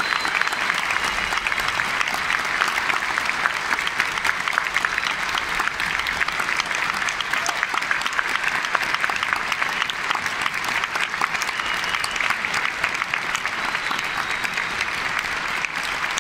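Large audience applauding, dense clapping at a steady level.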